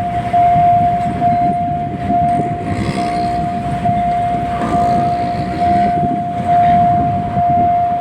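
Railway level-crossing warning alarm sounding as one steady high tone that swells slightly about once a second, signalling that a train is approaching and the barriers are about to lower. Road traffic rumbles underneath.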